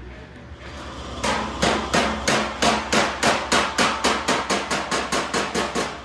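Hammer blows on the steel edge of a 1932 Ford fender, a quick steady run of about four strikes a second that starts about a second in and speeds up slightly toward the end.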